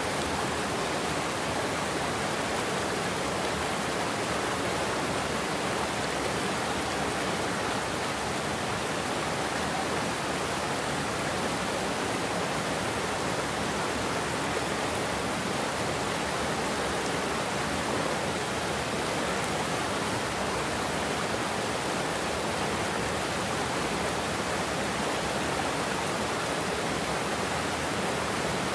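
Steady rush of water pouring over a low concrete weir into churning white water below.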